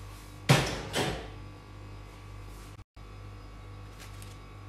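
Diced boiled potatoes tipped into a ceramic bowl: two short, sudden impacts about half a second apart, each with a brief rustling tail, over a low steady hum.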